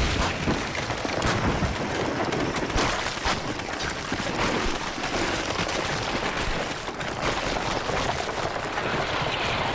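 Lava flowing into seawater underwater, crackling densely with a steady stream of sharp pops and bangs: steam explosions as the cold water quenches the molten rock.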